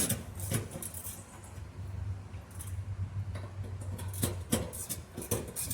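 Ratchet wrench clicking in short, irregular strokes as bolts are tightened.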